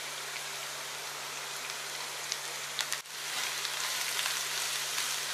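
Shredded cabbage and carrot strips sizzling in hot oil in a nonstick frying pan: a steady hiss with small crackles. About three seconds in it breaks off for a moment and returns a little louder and more crackly as a wooden spatula stirs the vegetables.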